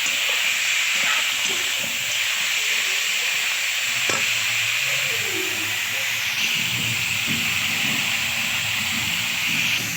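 Mutton sizzling steadily as it fries in a pan with onions and masala.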